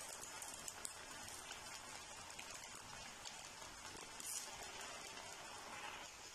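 Potato-dough rings frying in hot oil in a pan: a faint, steady crackling sizzle, with a brief louder burst of crackle about four seconds in as another ring is slipped into the oil.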